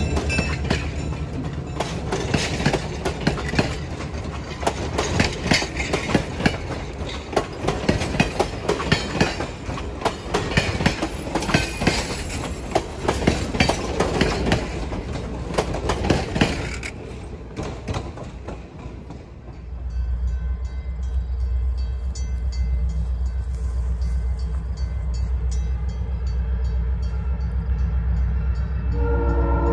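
A train passing, its wheels clicking over rail joints for about seventeen seconds. This gives way to a steady low rumble, and a train horn starts to sound near the end.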